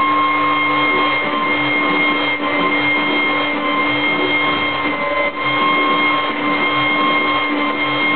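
Router motor serving as a CNC machine's spindle, running at a steady whine while its 4 mm bit mills a wooden board at 3 m/min feed and 3 mm cut depth, the cutting adding a steady rough noise.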